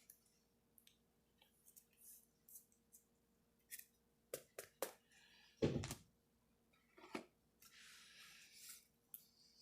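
Trading cards being handled and slid into plastic card sleeves: scattered soft clicks and plastic rustles, with one louder thump a little past halfway.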